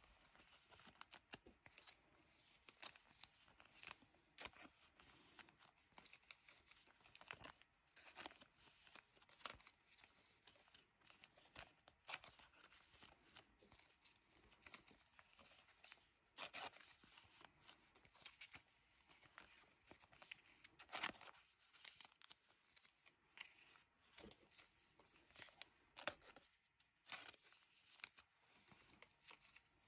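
Faint crinkling and rustling of thin clear plastic penny sleeves as trading cards are slid into them and fresh sleeves are peeled off a stack, in short irregular bursts with soft clicks of card stock.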